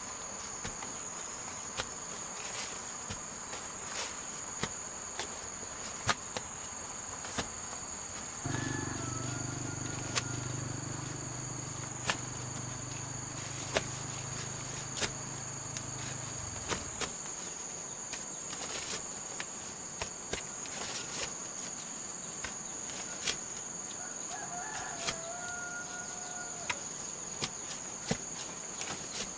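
Steady high-pitched trill of crickets, with short sharp knocks of a hoe chopping into soil. A rooster crows twice, about a third of the way in and again later, and a low steady hum runs for several seconds in the middle.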